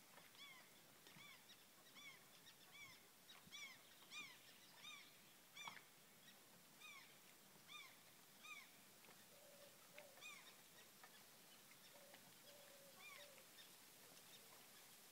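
Faint calls of distant waterbirds on a lake: a quick series of short rising-and-falling calls, thinning out after about nine seconds, when a few lower calls join in.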